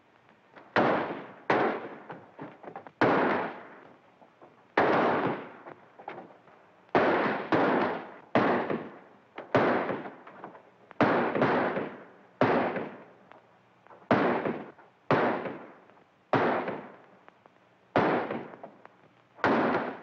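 Gunfire in a western shootout: about twenty pistol and rifle shots, one every second or so, some in quick pairs, each with a short echoing tail, on an old film soundtrack.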